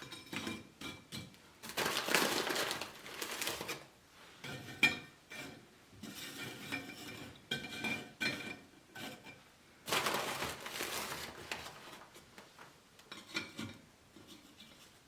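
Cookies being set out on a dish: light clinks and taps, some with a short ring. Twice the cookie packet rustles for about a second, early on and again about two-thirds of the way through.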